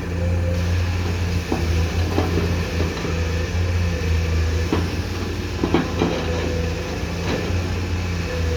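Komatsu PC210-10M0 excavator's diesel engine running steadily, with about half a dozen sharp knocks and clanks scattered over the stretch.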